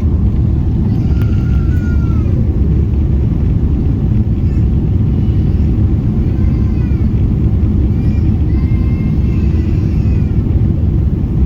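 Steady, loud low rumble of a Boeing 777-300ER heard from inside the passenger cabin, with faint passenger voices in the background.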